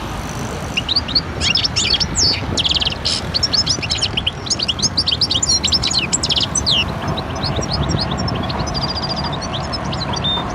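Many small birds chirping and twittering in quick, overlapping calls, busiest for the first two-thirds and sparser after, over a steady low background rumble.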